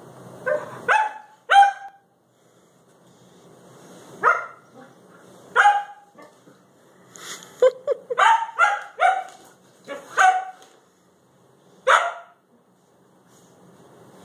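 Siberian husky barking in about a dozen short, excited calls, some singly and a quick run of several near the middle.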